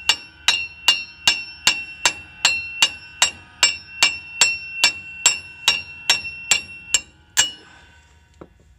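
A big hand hammer striking the end of a press-fit steel wheel stud in a 1996 Ford Bronco's rear hub flange, driving the damaged stud out. About two and a half ringing metal blows a second, stopping shortly before the end, with one faint knock after.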